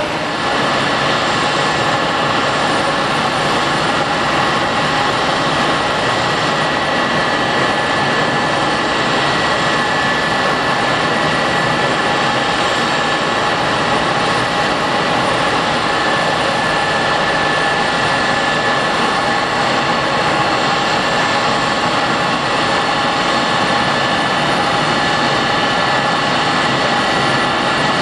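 Boeing 767-300 airliner's jet engines running steadily: an even rushing noise with a high, unchanging whine.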